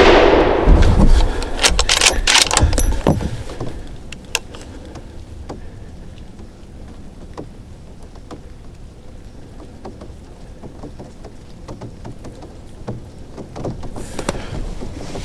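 The rolling echo of a Mossberg Patriot .350 Legend rifle shot, dying away over about four seconds with a deep rumble in its first second and sharp clicks and knocks over it. Then a faint steady hiss with a few scattered small ticks.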